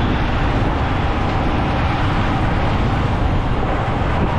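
Steady wind rush and road noise from a Yamaha MT-15 motorcycle being ridden, with the wind on the microphone heaviest in the low end.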